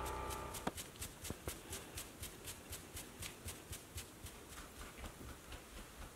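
A dog scratching itself with a hind leg, each stroke a sharp click in an even rhythm of about four a second that fades near the end; the itching is taken for a sign of fleas. A steady hum cuts off about half a second in.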